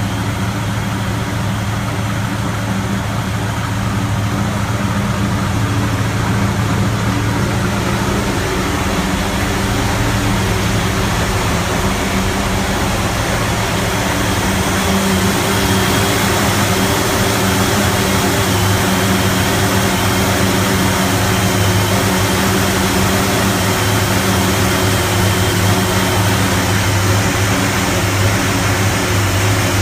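Engine of a '55 vehicle running at a very rough idle, steady and continuous, getting slightly louder about halfway through.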